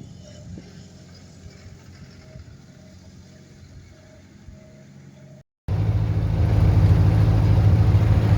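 A vehicle engine running steadily while driving, a loud, even low hum. It comes in suddenly about two-thirds of the way through, after a quieter stretch of faint low rumble.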